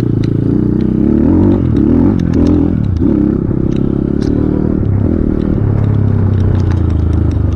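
Off-road motorcycle engine running and revving, its pitch rising and falling between about one and three seconds in, with scattered sharp clicks and knocks over it.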